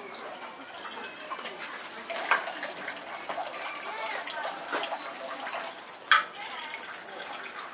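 Water running and splashing in a temple purification basin, with a few sharp knocks from the basin's ladles being moved about. The loudest knock comes about six seconds in.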